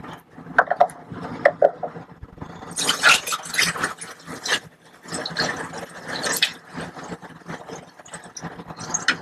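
Liquid reagent glugging and splashing as it is poured from a plastic jug through a plastic funnel into a processor reagent bottle. The pouring starts about three seconds in and comes in surges, after a few light plastic knocks. A steady low hum runs underneath.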